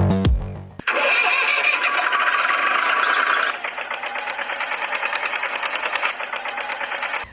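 Small engine starting about a second in and then running with a rapid ticking beat, with no low rumble.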